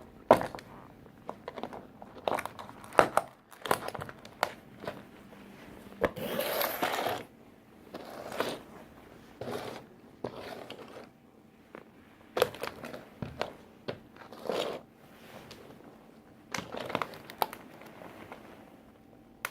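A toy tractor being crushed under work boots: irregular sharp cracks and crunches with scraping and crinkling of broken pieces, the loudest snaps just after the start and about three seconds in.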